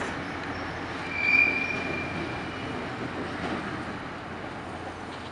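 Stainless-steel Budd-built passenger cars rolling over a steel girder bridge: a steady rumble of wheels on rail, with a brief high-pitched wheel squeal about a second in that lasts about a second.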